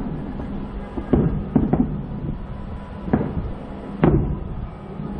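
Aerial fireworks going off: about five sudden booms in a few seconds, two close together early on and the last one the loudest near the end, over a steady low hum.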